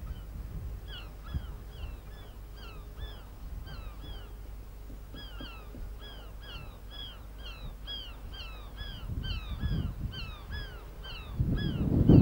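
A flock of birds calling outdoors: short, harsh hooked calls, several a second, in overlapping flurries. Under them runs a low rumble that grows louder near the end.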